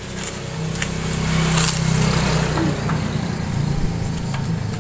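A small motor running steadily with a low hum, growing louder about a second in. A spoon clicks against a plate a couple of times.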